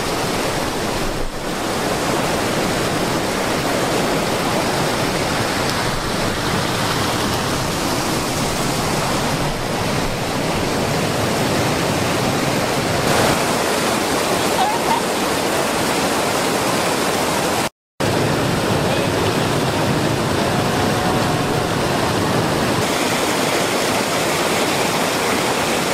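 River rapids rushing through a narrow rock chute and pouring over boulders: a loud, steady whitewater rush, broken once by a split-second gap about two-thirds of the way through.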